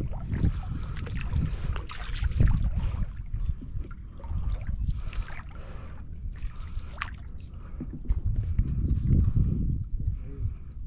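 Wooden canoe moving through calm water: water swishing and lapping along the hull, with uneven low rumbles of wind on the microphone that swell about two seconds in and again near the end.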